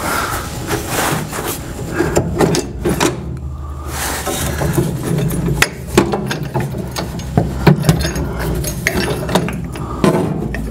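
Irregular metal knocks, clanks and scraping as the table saw's caster assembly is worked loose by hand under the steel base, over a steady low hum.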